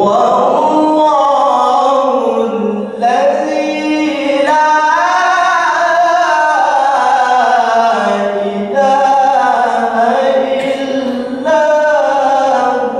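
A male qari reciting the Quran in a melodic, ornamented style, holding long notes that waver up and down. He takes short breaths between phrases about four times. The voice is amplified through a microphone.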